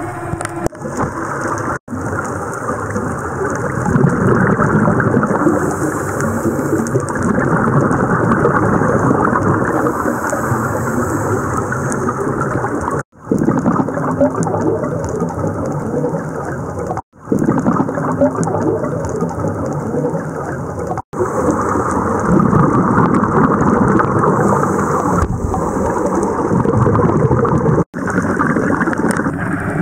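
Underwater rumbling and crackling noise picked up by a camera in its dive housing, muffled and steady, cutting out for an instant at each of several edits.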